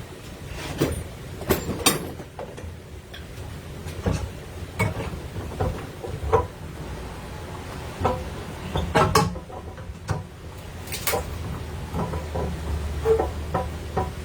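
Hand tools working a long nail out of reclaimed wood: irregular knocks, taps and scrapes of metal on wood, with a low steady hum underneath.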